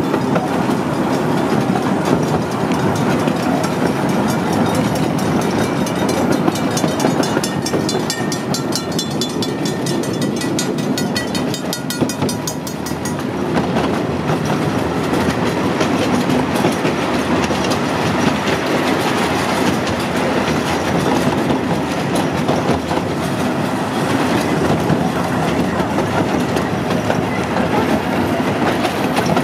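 Ride-on park train rolling along its narrow track, the open riding cars' wheels clattering steadily over the rails. Partway through there is a stretch of fast, high-pitched clicking.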